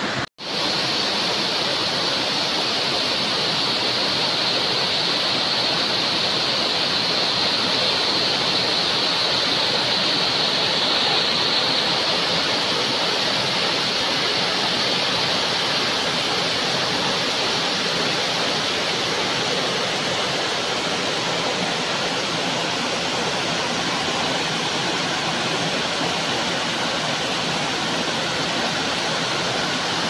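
Waterfall cascading over rocks: a steady, full rush of falling water that cuts out for a split second just after the start.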